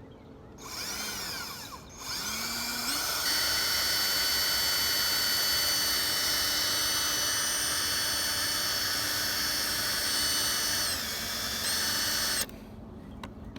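Small electric drill drilling out a rivet on a die-cast model car. The motor gives a short spin-up and stop about a second in. It then spins up and runs at a steady high pitch for about nine seconds, dips briefly near the end, and cuts off suddenly.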